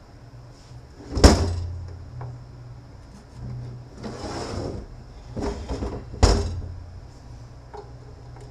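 Two sharp knocks about five seconds apart, with scraping and rattling between them, as a stuck BorgWarner 1356 transfer case is worked apart.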